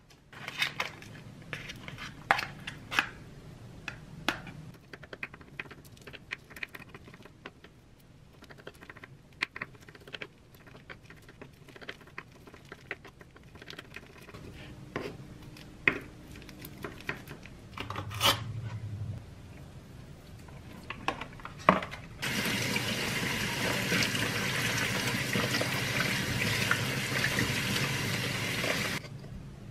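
Scattered clicks and crinkles of a plastic natto pack being opened, then a serrated knife tapping through natto on a wooden cutting board. About three-quarters of the way in, a kitchen faucet runs steadily into the sink over bean sprouts in a colander, the loudest sound, and shuts off sharply near the end.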